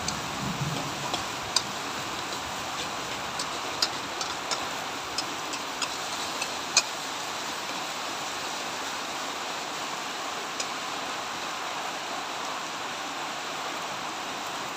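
Metal spatula clinking and scraping against a steel wok as shredded carrots are stir-fried: a scatter of sharp clicks, most in the first half and one more later, over a steady hiss.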